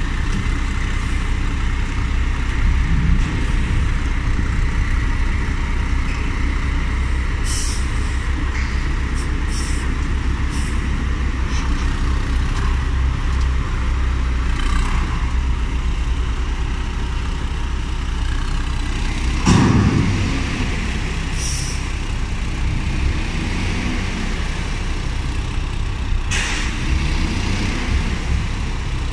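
Weichai diesel engine of a KAT 3604 four-wheel-drive tractor running steadily as it creeps along a flatbed truck deck. Several short hisses break in over it, with one louder burst about two-thirds of the way through.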